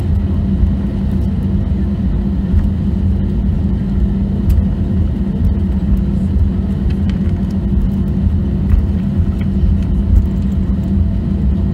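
Cabin noise of an Airbus A320 taxiing: a steady low rumble with a level hum from the jet engines at taxi power and the rolling wheels, with a few faint clicks.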